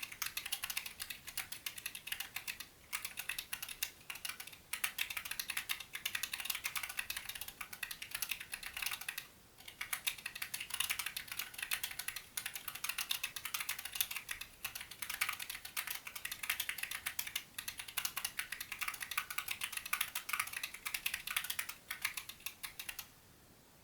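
Typing on a Corne split mechanical keyboard with 62 g Zealios v2 tactile switches in a brushed-steel case, with EVA foam damping between the 3 mm steel plate and the PCB. A steady run of key clacks with a few brief pauses stops just before the end.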